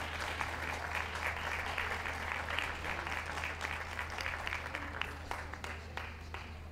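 Ringside crowd applauding a group winner as it is presented: a dense patter of hand claps that thins and fades toward the end.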